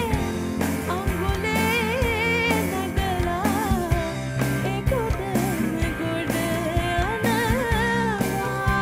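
Sinhala song in an acoustic arrangement: a voice singing over instrumental backing with a steady beat. The singing gives way to held instrumental notes near the end.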